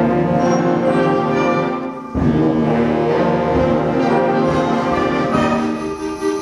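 High school concert band playing held full-band chords; about two seconds in the band stops briefly and comes back in together.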